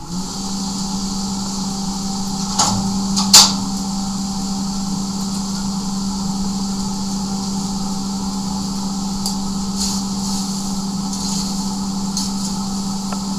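Electric blower on a coal forge switched on and running with a steady hum and rush of air, blowing the fire up as it is lit. Two sharp metal clanks about two and a half and three and a half seconds in, the second louder, from the fire rake knocking the forge.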